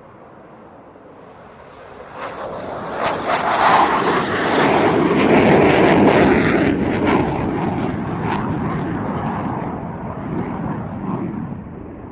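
Fighter jet taking off, its engine noise building up, peaking with a crackling roar about four to seven seconds in, then fading as it climbs away.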